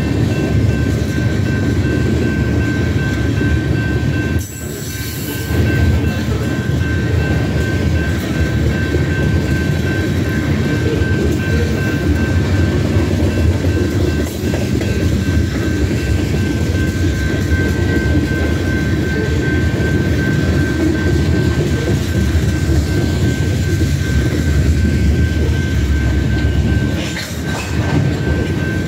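BNSF grain train of covered hopper cars rolling past: a steady rumble of steel wheels on rail with clattering over the joints, and a thin steady high tone above it. The loudness dips briefly twice, about four seconds in and near the end.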